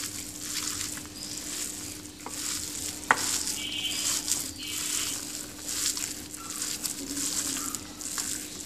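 A gloved hand kneading a moist pakora mixture of grated potato, onion, spices and gram flour in a ceramic bowl: irregular squishing and crackly rustling, with a sharper click about three seconds in. A faint steady hum runs underneath.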